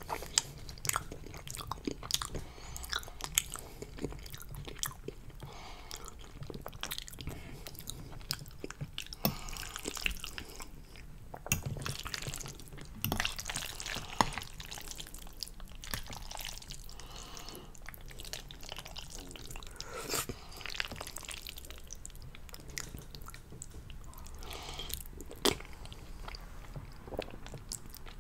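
Close-miked mouth sounds of a person eating creamy fettuccine: wet chewing and slurping of long noodles, with a constant stream of sharp little clicks and smacks.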